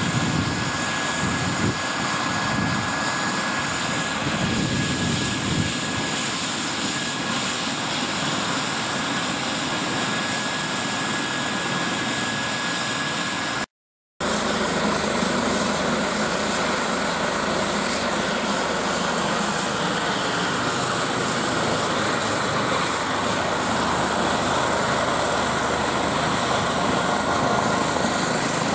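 Eurocopter EC135 T1 helicopter's twin Turbomeca Arrius turbines and rotor running steadily on the ground, a continuous high turbine whine over rotor noise. The sound cuts out for a moment about halfway through.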